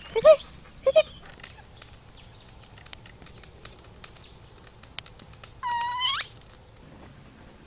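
Animal calls: a few short, high calls in the first second, then one longer call held about half a second around six seconds in, with scattered light clicks between them.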